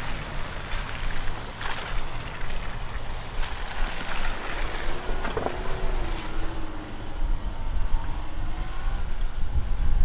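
Wind buffeting the microphone over a Range Rover SUV driving through mud and snow, with a wavering engine note from about four to nine seconds in and a short click in the middle.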